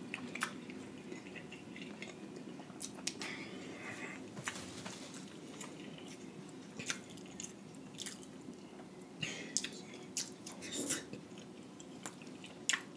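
Close-miked mukbang eating: chewing and wet lip smacks of sauce-soaked seafood boil food, with scattered wet clicks and squelches from fingers in the sauce, over a faint steady hum.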